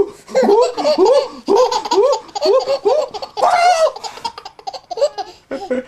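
A 7.5-month-old baby laughing in a quick run of short rising-and-falling bursts, about three a second, with one louder, breathier burst about halfway through.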